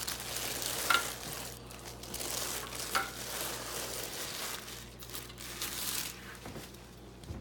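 Plastic packaging crinkling and rustling as it is handled, with sharper crackles about one second and three seconds in.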